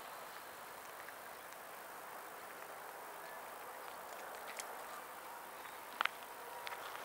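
Faint, steady outdoor background noise with no distinct source, broken by a few small clicks and one sharp click about six seconds in.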